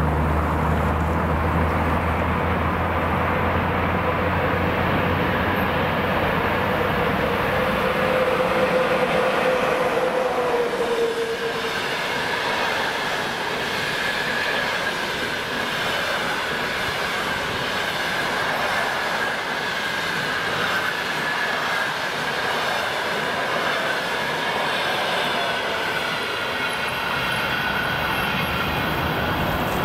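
Express passenger train hauled by a ChS7 two-section electric locomotive passing close by. The locomotive's low hum fades in the first second or two, then the passenger coaches roll past with a steady high-pitched wheel squeal on the curve, which jumps higher about a third of the way through.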